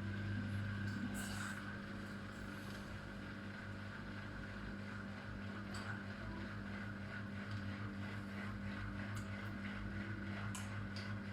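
Miele W1 washing machine humming steadily before the spin, with a few faint ticks over it: the strange pre-spin noise, which the service put down to the machine not standing level or not being used properly.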